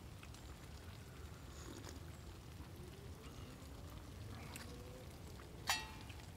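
A single sharp metallic clink with a short ring near the end, enamel tableware being handled, over a faint low background rumble.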